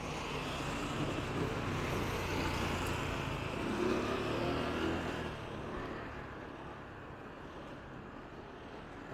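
A car driving past close by: engine and tyre noise builds, peaks about halfway through, then fades away.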